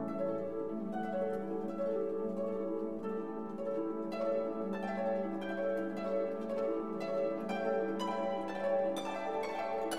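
Instrumental background music: plucked string notes over a held low note, the plucked notes coming thicker in the second half.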